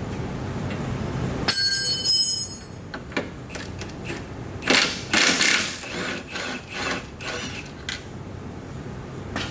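Hand-tool work on a car: sharp metallic clicks and short scraping clatters, following a brief high ringing tone about a second and a half in.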